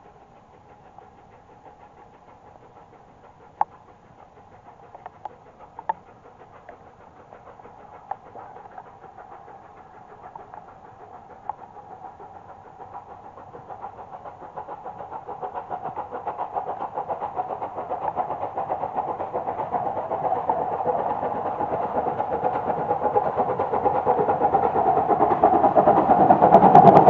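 Rebuilt Bulleid Battle of Britain class steam locomotive 34059 Sir Archibald Sinclair approaching under steam, its rapid exhaust beats growing steadily louder as it nears. A few sharp clicks come in the first half.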